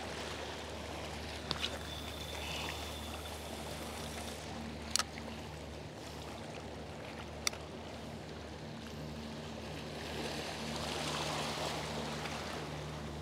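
Small sea waves lapping and washing around shore rocks, swelling louder about ten seconds in, over a steady low hum. A few sharp clicks stand out, the loudest about five seconds in.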